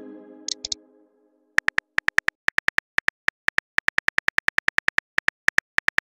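Simulated phone keyboard typing clicks from a texting app, short sharp ticks with a slight pitched ring, about seven a second, beginning about a second and a half in as a message is typed out. Before them, the tail of a message-send chime fades out, with a short double blip about half a second in.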